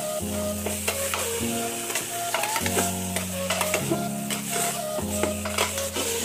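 Mutton frying in oil in an aluminium pressure cooker, sizzling while a steel ladle stirs it, scraping and knocking against the pot. Background music with held chords that change about every second runs underneath.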